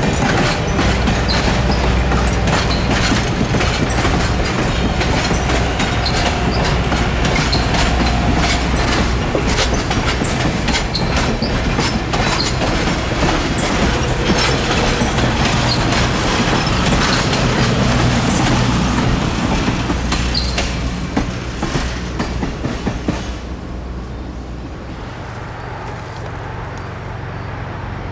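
Passenger train passing close by: steel wheels clicking over the rail joints, with a steady low rumble. The sound fades from about twenty seconds in as the last car moves away.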